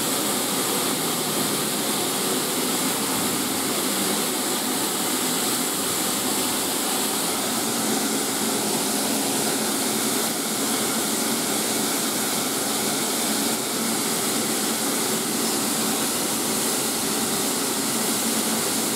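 Steady loud hiss of steam from the steam locomotive GWR No 4079 Pendennis Castle, standing at the platform.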